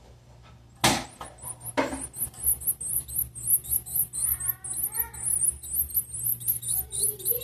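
Blue-black grassquit (tiziu) nestlings begging with a rapid, continuous stream of very high-pitched cheeps, starting about a second in. Two sharp knocks come just before and just after the cheeping starts.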